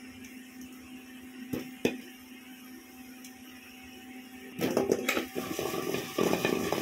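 Faint steady hum with a couple of light knocks, then, about four and a half seconds in, a loud rattling and scraping as baked litti dough balls roll and tumble around a metal kadhai that is being shaken to coat them in ghee.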